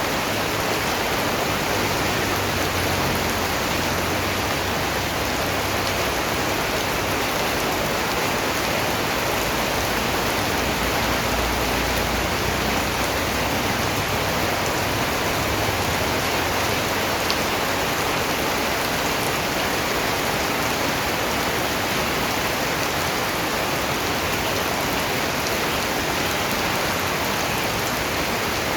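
Steady, heavy rain falling, an even hiss of dense raindrops.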